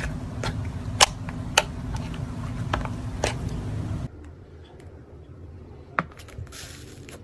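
Slime being squeezed and poked, with sharp clicks and pops from trapped air about every half second over a steady low hum. About four seconds in it cuts to a much quieter clip, with one click near six seconds and a soft hiss near the end.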